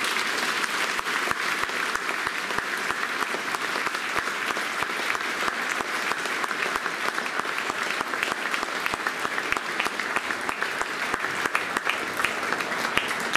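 A large audience applauding, dense clapping that keeps going at an even level.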